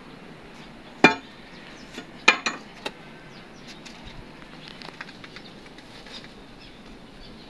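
Long iron bar striking the concrete of a niche tomb being broken open: one sharp hit about a second in, then a quick run of three hits about two and a half seconds in, followed by faint, scattered small knocks.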